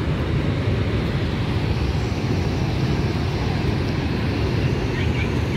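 Steady roar of Niagara Falls: a loud, even rush of falling water, heaviest in the low rumble.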